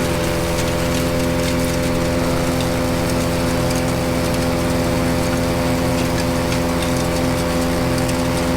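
Honda-engined self-propelled wood chipper running steadily at working speed.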